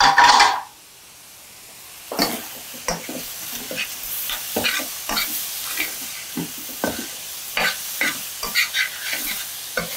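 A short loud noise at the very start, then from about two seconds in shrimp sautéing in a stainless-steel pan: a steady sizzle with the scrape and tap of a spoon as the shrimp are stirred.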